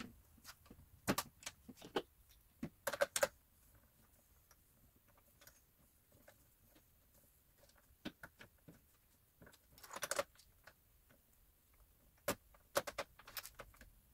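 Scattered small metallic clicks and clinks of bolts and hardware against a steel stool tray as they are fitted by hand and left loose, in a few short clusters with quiet gaps between.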